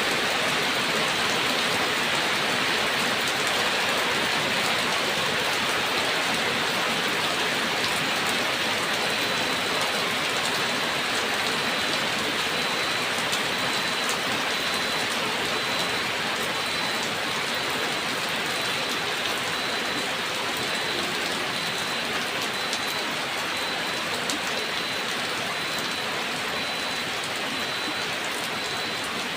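Steady heavy rain falling, a dense even hiss with scattered sharp drop ticks.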